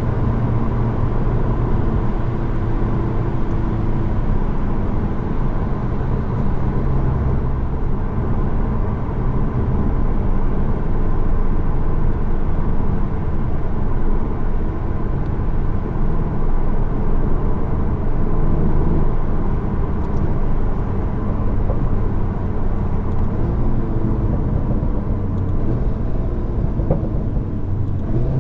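Seat Leon Cupra 300's turbocharged 2.0-litre four-cylinder and stock exhaust heard from inside the cabin while driving: a steady engine drone mixed with road noise. The engine note shifts a little near the end.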